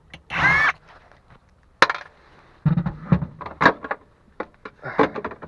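Hands at work at the fuel pump access hatch under the rear seat of a Lexus IS200: a short squeak, then a sharp click and an irregular run of knocks and rattles as the hatch and the pump's connector are handled.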